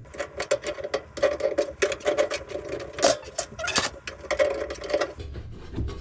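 Wrench working the threaded couplings of braided steel water supply hoses loose from a washing machine's inlets: rapid, irregular metal clicking and scraping with a squeaky tone, stopping about five seconds in.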